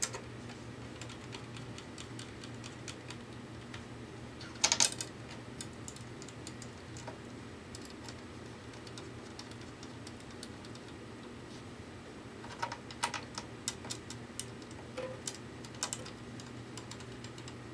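Light metallic clicks and taps of banjo tension hooks and nuts being fitted around the rim, in small scattered clusters, the loudest about five seconds in and another group later on, over a steady low hum.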